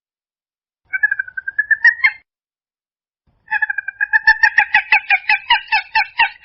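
Purple gallinule calling: about a second in, a drawn-out note rising slightly in pitch and ending in a few quick notes; then, after a pause, a fast run of short repeated notes, about six a second.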